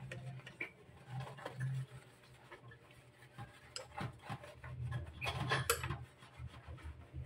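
A soapy sponge scrubbing a water purifier's cloth filter by hand, giving wet rubbing and squishing. Sharp clicks and knocks come about four seconds in and again around five and a half seconds.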